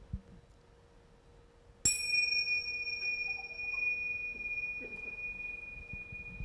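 Tingsha cymbals struck once about two seconds in, then ringing in a high, steady tone that slowly fades. The ring is the signal to begin a minute of silent thinking.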